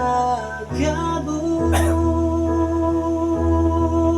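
Music: a slow pop ballad in which a voice finishes a sung line, then steady held chords sustain under a pause in the vocal.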